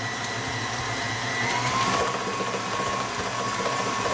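KitchenAid Artisan stand mixer running at medium-high speed, its flat beater beating thin chocolate cake batter in the steel bowl. The motor whine is steady and changes pitch about a second and a half in.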